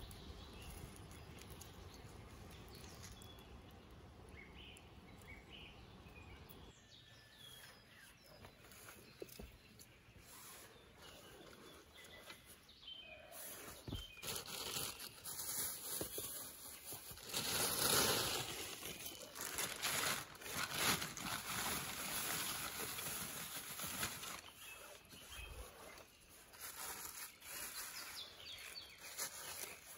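Rustling and crunching handling noises, irregular and loudest from about halfway through, with faint bird chirps in the first few seconds.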